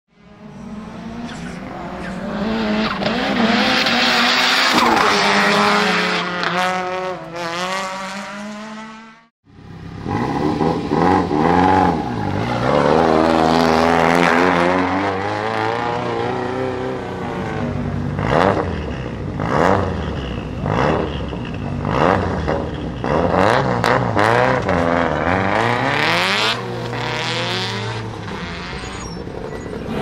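Turbocharged 2.0-litre four-cylinder engine of a modified Lancia Delta Integrale EVO2 race car revving hard, its pitch climbing and falling through the gears. Sound cuts out briefly about nine seconds in, and a string of short sharp pops comes through the second half.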